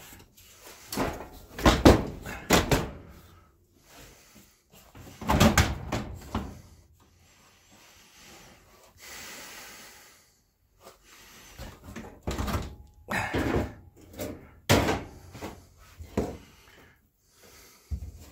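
Metal parts of a GE oven door hinge knocking and clanking against the oven's sheet-metal frame in irregular clusters as the hinge is worked into its slots.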